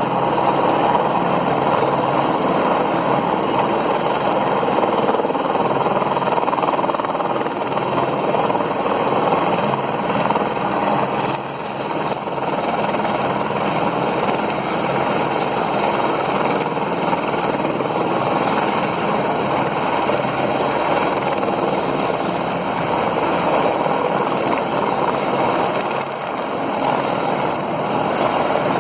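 Police rescue helicopter's rotor and turbine running steadily, a dense rapid chopping throb.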